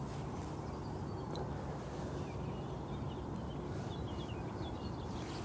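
Quiet outdoor ambience: a steady low rumble with a few faint, brief bird chirps.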